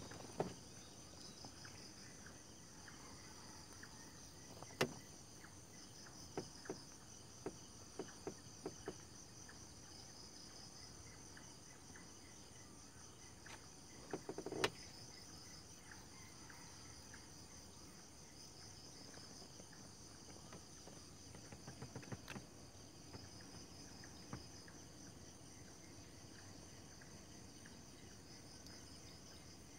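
A steady chorus of night insects trilling in fast, high-pitched pulses. It is broken by scattered sharp clicks and taps: a few louder knocks, one near the start, one about five seconds in and one about halfway, and a quick run of lighter taps a quarter of the way in.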